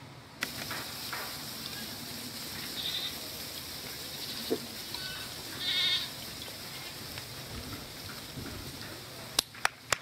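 A herd of Boer goats bleating, a few short high calls over a steady outdoor hiss. Several sharp clicks near the end.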